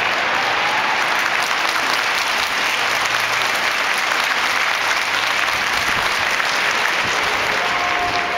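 A large crowd of football supporters applauding steadily in a stadium.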